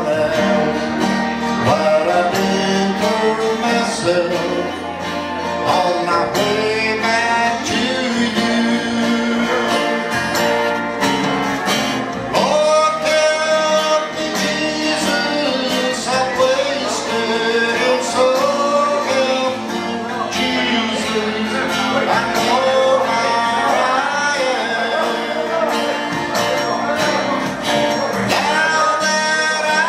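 Man singing a slow country song, accompanying himself on acoustic guitar.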